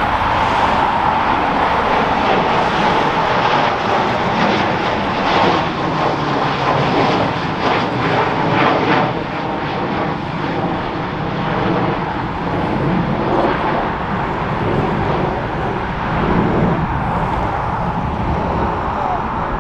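Gulfstream G650ER business jet climbing out after takeoff, its two Rolls-Royce BR725 turbofans giving a loud jet roar with a strong whine. The whine and overall level ease after about ten seconds as the jet climbs away.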